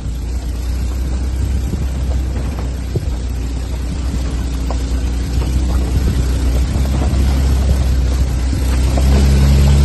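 Four-wheel-drive vehicle's engine running under load on a rough off-road track: a steady low drone with scattered knocks and rattles, getting louder about nine seconds in.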